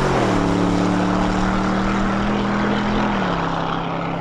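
Pickup truck's engine at full throttle on a quarter-mile drag run. Its pitch drops at a gear change right at the start, climbs slowly, then drops at another shift about three seconds in. The sound slowly fades as the truck pulls away.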